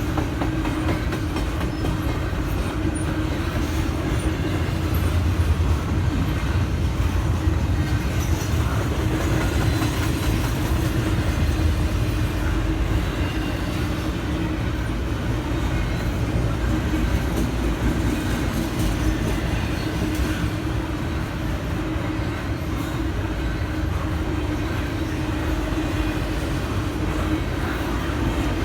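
Norfolk Southern intermodal freight train rolling past a level crossing: a steady, loud rumble of wheels on the rails with clickety-clack over the joints.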